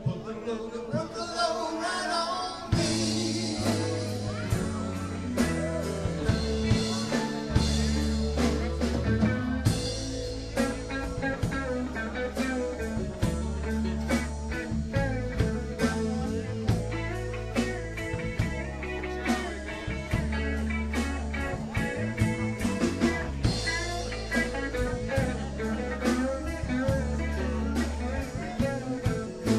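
Live blues-rock band music: an instrumental passage with guitar over bass and drums keeping a steady beat.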